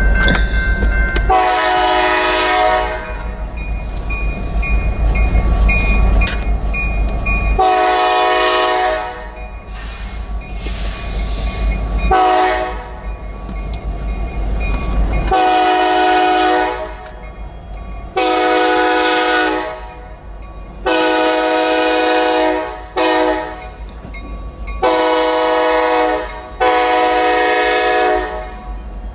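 Air horn of Kansas City Southern locomotive #3946 blowing the grade-crossing signal as it approaches: a long, a long, a short and a long blast. Four more long blasts and another short one follow as it nears the crossing, each blast a multi-note chord, over the low rumble of the oncoming freight train.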